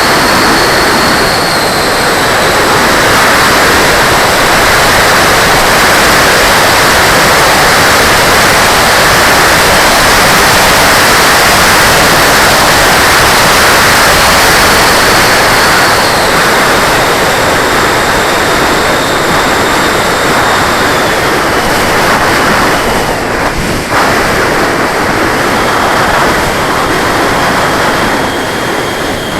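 90 mm electric ducted fan of a radio-controlled jet heard from on board: a loud, steady rush of air with a thin high whine that drops in pitch in a few steps as the throttle changes. A brief dip in level comes near the end.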